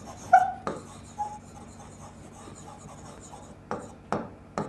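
Marker pen writing on a whiteboard: a few short scratchy strokes near the start, including a brief squeak, then a lull, then a few more strokes near the end.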